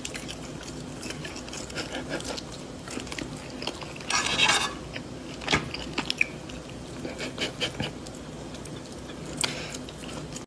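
Cat biting and chewing food taken off a fork, heard as many small sharp clicks and crunches, with a louder crunching burst about four seconds in and another near the end.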